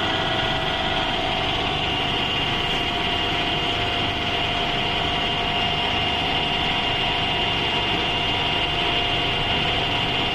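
CW6163B engine lathe running steadily while turning a steel shaft, a constant mechanical hum with a steady whine from the headstock gearing and no change in speed.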